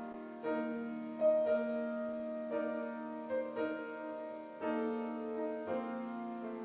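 Slow, gentle piano music, with new chords struck every second or so and held to ring.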